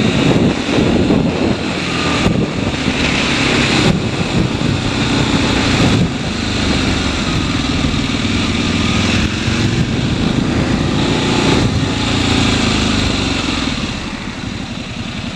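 Motorcycle engine running and changing pitch as the rider works the throttle, under heavy wind noise on a helmet-mounted camera's microphone. It gets somewhat quieter near the end as the bike slows.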